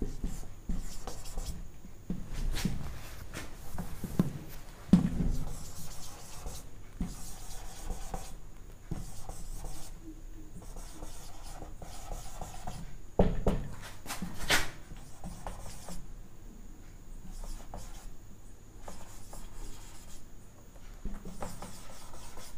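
Whiteboard marker writing a sentence on a whiteboard: short scratchy strokes in bursts, with a few sharper taps of the marker on the board.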